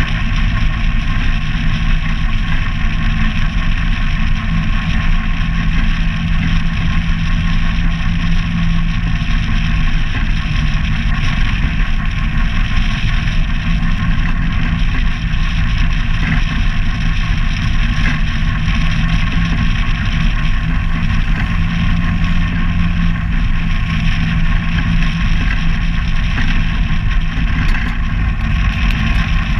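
ATV engine running steadily while riding along a gravel road, its pitch holding even.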